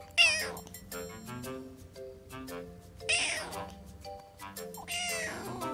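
Tabby kitten meowing three times, calls that fall in pitch, the first the loudest, over background music.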